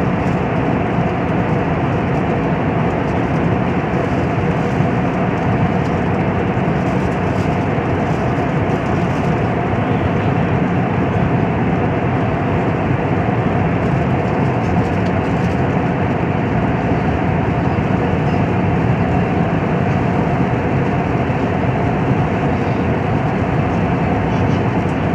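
Steady cabin noise of a twin-engine jet airliner in flight, heard from a window seat beside the wing: an even rush of airflow with the engines' hum underneath, unchanging throughout.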